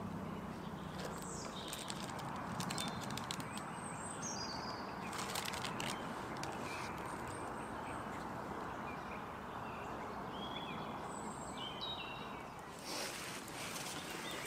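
Small songbirds chirping in short, high, falling phrases over a steady woodland background hiss, with a few light clicks and knocks and a brief rustling burst near the end.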